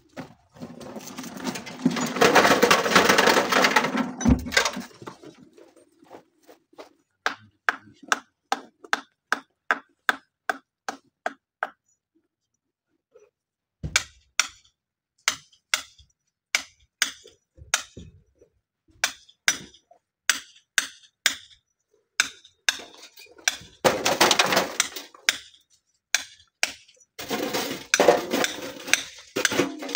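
Hand tools striking a stony pile: steel hoes chopping into rock and gravel in a run of sharp strikes, about two a second. Longer clattering rushes of loose stones and gravel come near the start, about two thirds of the way through, and again near the end.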